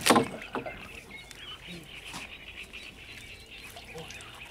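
Small birds chirping and twittering on and off throughout, over a faint open-air background. A brief loud burst of noise sits at the very start.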